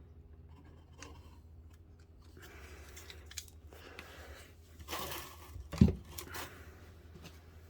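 Soft scraping and handling noises as latex sealant is spread across a filled wood floor patch, with a sharp knock a little after halfway.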